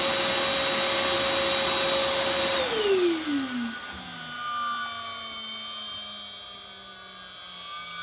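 CNC router spindle whining steadily over a rushing machine noise, then spinning down about two and a half seconds in: its whine falls in pitch and the rush dies away as the facing operation ends. Afterwards a much fainter steady hum with a few thin tones remains.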